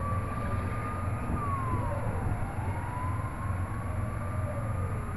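CSX freight train of tank cars rolling past with a steady low rumble. A siren wails faintly over it, its pitch falling about a second and a half in and then rising again.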